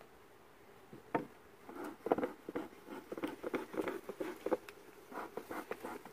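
Beekeeper's bellows smoker being pumped, a quick irregular run of short puffs that starts about a second in, to smoke the bees before the hive is opened.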